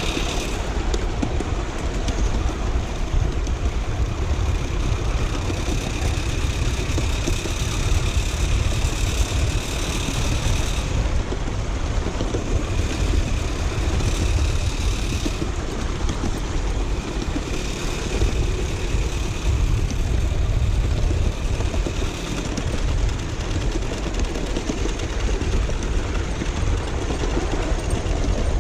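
Miniature steam locomotive running on its track: a steady rumble of wheels and running gear, with a higher ringing tone that comes and goes several times.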